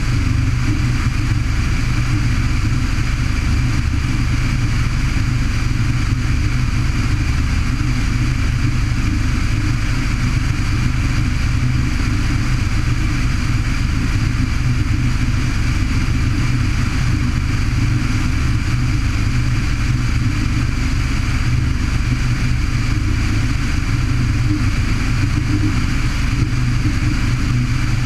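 Light single-engine aircraft's piston engine and propeller running steadily in flight, heard from a camera mounted under the wing, with airflow rushing over the microphone.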